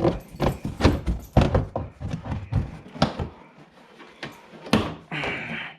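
A run of sharp knocks and clicks as plastic bumper trim and fasteners are pried and handled, with a short scrape near the end.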